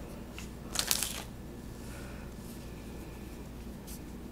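Pokémon trading cards sliding against each other as a stack is flipped through by hand: a short soft swish about a second in, and a fainter one near the end.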